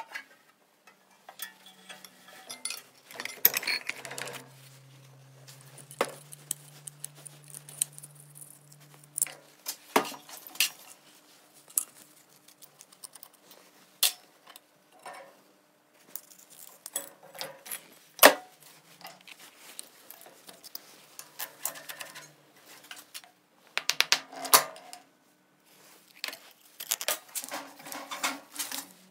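Metal parts of an old Soviet drill press clanking and clinking as they are handled and taken apart: irregular knocks and rattles, some sharp and loud.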